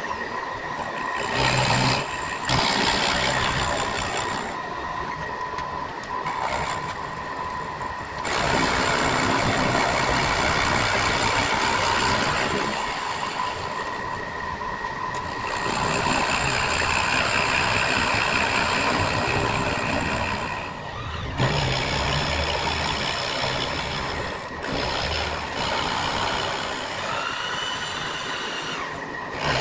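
A metal-cutting machine tool running and cutting a flat into a band saw transmission housing: a steady running whine under rough cutting noise that swells and eases as the cut goes on. The noise dips briefly about two seconds in and again around twenty-one seconds.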